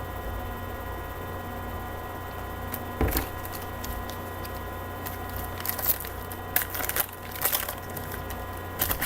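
A foil trading-card pack being torn open and the cards handled: one sharp crackle about three seconds in, then a run of short crinkling crackles over the last few seconds.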